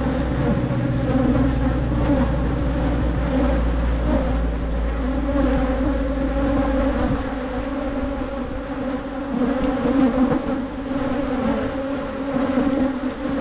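Honey bees buzzing in a dense, steady drone close around a head-mounted camera: an agitated colony during a hive inspection.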